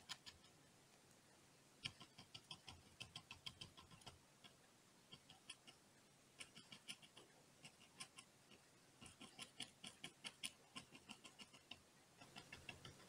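Round bristle brush dabbing acrylic paint onto a hardboard panel to stipple dark foliage: faint, quick taps in runs of several at a time, with short pauses between runs.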